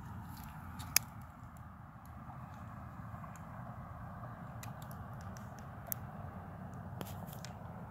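Phone handling noise: the microphone rubbing and rustling against clothing, with a sharp click about a second in and a smaller one near six seconds.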